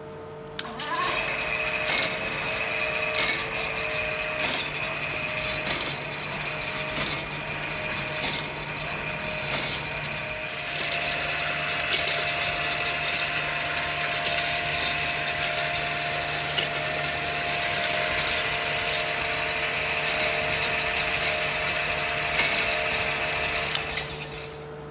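Shop-built camshaft copying machine running: a steady motor whine with a sharp click about every 1.2 seconds. It starts about half a second in and stops just before the end.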